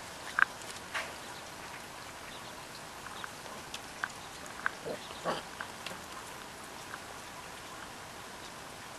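Five-week-old English springer spaniel puppies giving scattered short yips and squeaks as they play, over a steady faint hiss.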